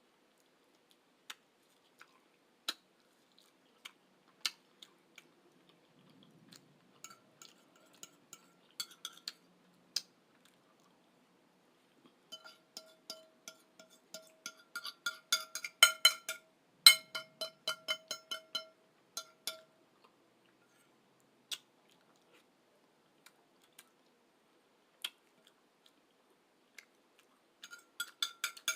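Eating sounds: a metal utensil clinking and scraping against a ringing dish, scattered taps at first, then a quick run of clinks from about twelve to twenty seconds in and another near the end, with soft chewing between.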